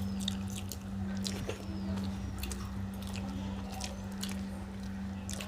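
Close-up eating sounds: mouth smacks and chewing of rice and egg curry, with small wet clicks scattered irregularly over a steady low electrical hum.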